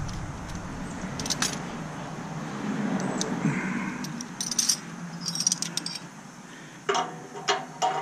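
Hand tools and metal fittings clinking and rattling against a stainless steel steamer while it is taken apart, with a few sharper ringing metal clinks near the end.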